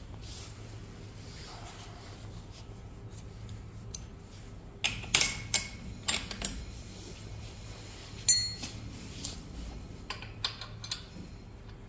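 Metal tools and small metal parts clicking and clinking against each other and against metal, in a few scattered knocks. The loudest is a sharp clink about eight seconds in that rings briefly.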